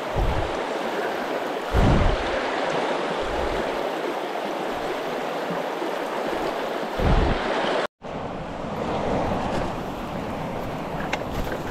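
Steady rushing of flowing stream water, with a few low thumps on the microphone. The sound drops out for an instant about eight seconds in.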